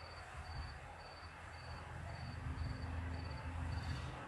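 Cricket chirping at a steady rate of about two short high chirps a second, with a low hum underneath.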